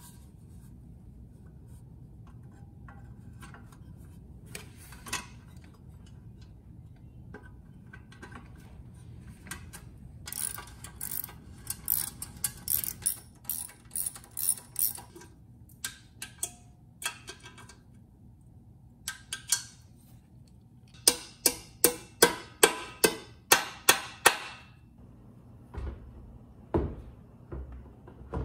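Socket ratchet clicking in runs as the bolts of a generator's stock muffler are tightened, the loudest and quickest run a little past two-thirds of the way in. Near the end, a few low thuds as the plastic fuel tank is set back onto the frame.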